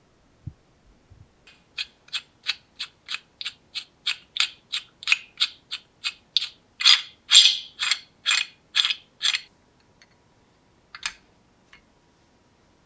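Knurled adjusting nut of a Whitman & Barnes monkey wrench being turned by thumb, its screw driving the sliding jaw along the bar: an even run of short metal clicks, about three a second, loudest midway, then a couple more clicks near the end.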